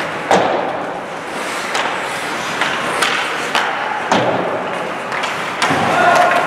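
Ice hockey play: sticks and puck knocking sharply several times over the scrape of skates on the ice, with one heavier thud near the end. A voice calls out near the end.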